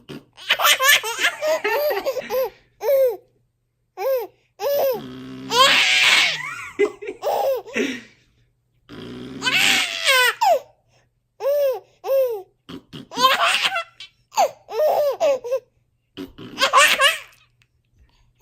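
A baby laughing in repeated bouts of high, hiccuping belly laughs with short pauses between them. About five and nine seconds in, a lower buzzing fart noise sounds just before the laughter breaks out again.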